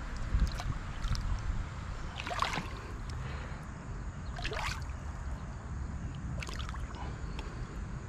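Shallow creek water trickling and sloshing, with a few brief splashes as a hooked channel catfish is landed by hand in the shallows.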